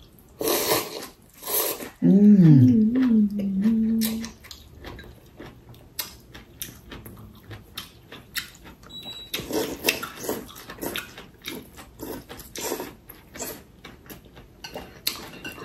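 Rice noodles being slurped from chopsticks, then a drawn-out hummed 'mmm' of enjoyment that dips and then holds steady. This is followed by chewing and small clicks of chopsticks against bowls.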